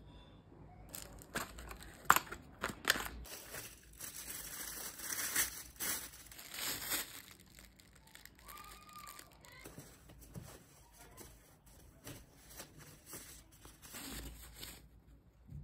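Plastic bag and tissue-paper packaging crinkling as model engine parts are unwrapped by hand, with a few sharp clicks about two to three seconds in.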